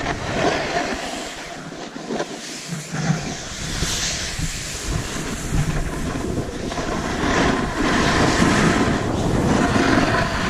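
Skis scraping over packed snow during a downhill run, with wind buffeting the camera microphone; the noise grows louder over the second half.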